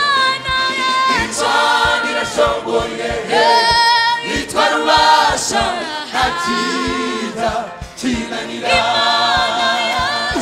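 Women's gospel choir singing in Kinyarwanda, lead singers on microphones with the group joining in, over a steady beat.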